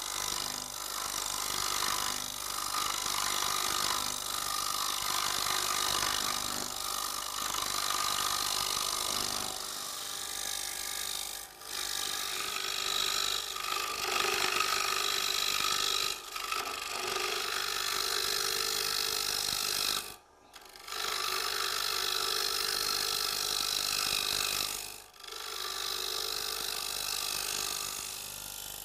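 Wood lathe spinning a wooden bowl blank while a round tungsten carbide cutter on a turning tool scrapes across it, a steady rasping cut as the blank is roughed to round and the bowl shape is formed. The cutting runs in several long passes with short breaks between them.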